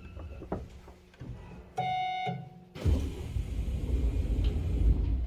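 A short electronic chime, a single pitched note lasting about half a second, sounds about two seconds in while a train is standing at a station. It is followed about three seconds in by a louder low rumble from the train.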